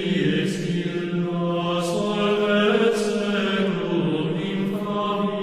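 Outro music: a low, sustained chant of voices over a steady drone, with a few faint high swishes.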